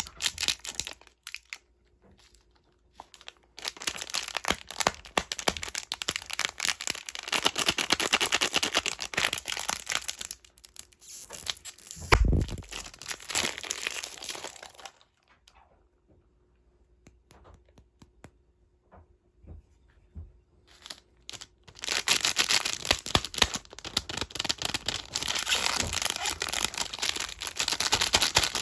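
Candy wrappers being crinkled and torn open in bursts, with a long pause after the middle. A single sharp low thump comes a little before halfway.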